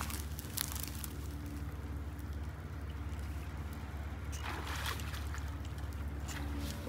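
Bowfishing shot at a tilapia in shallow water: a sharp snap of the bow's release about half a second in, then a brief splash from the struck fish near the middle, over a steady low rumble.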